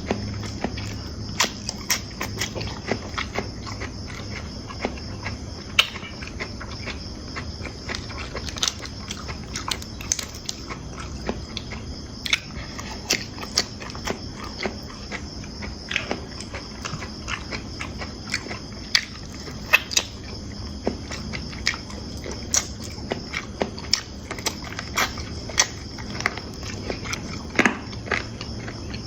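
Someone eating fried rice: irregular sharp clicks and clinks of cutlery on a plate, with bites and chewing, over a steady high chirring of insects.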